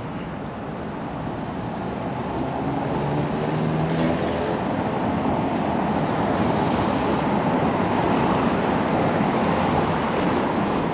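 City street traffic noise: vehicles passing, swelling louder over the first four seconds and then holding steady, with a faint engine hum among it.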